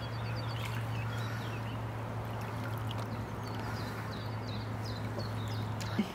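Lake water sloshing and trickling around a wading angler handling a common carp at the surface, with small birds chirping throughout. A steady low hum runs underneath and cuts off near the end.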